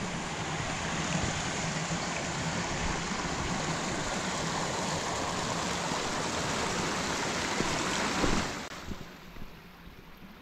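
Steady rushing noise of running water that cuts off suddenly about eight and a half seconds in, leaving a much quieter hiss.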